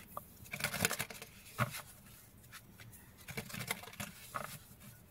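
Quiet hand-shuffling of a deck of oracle cards: short, soft flicks and taps of cards against each other, coming in a few irregular clusters.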